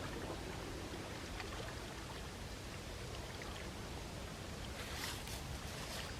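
Sea waves washing against the shore in a steady wash, with a brighter splash and fizz about five seconds in.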